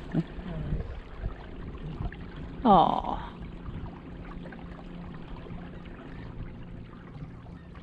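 Water trickling and dripping around a paddled canoe. About three seconds in there is one short, loud, pitched call.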